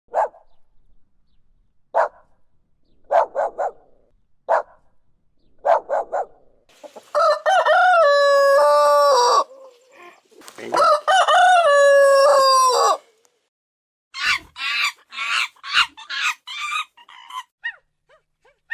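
Chickens clucking in short separate calls, then a rooster crowing twice in long drawn-out crows, followed by a quick run of high clucking calls.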